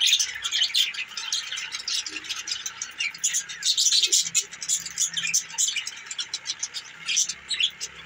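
A flock of budgerigars chattering, a rapid, continuous stream of short high chirps and warbles from several birds at once.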